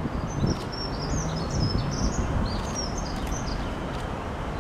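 A small bird twittering in a quick run of short high chirps that stops about three and a half seconds in, over the steady low rumble of an approaching Class 66 diesel freight locomotive and its wagons.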